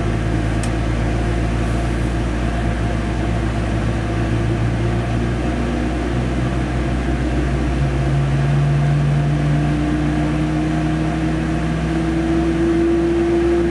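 Airbus A320 flight simulator's engine sound during an engine start: a steady low hum from the engine already at idle, with a whine that rises slowly in pitch over the second half as the starting engine spools up.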